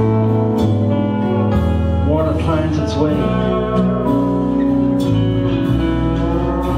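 Live band playing an instrumental passage: acoustic and electric guitars, bass guitar, drums and keyboard, with a Weissenborn lap slide guitar gliding between notes around the middle.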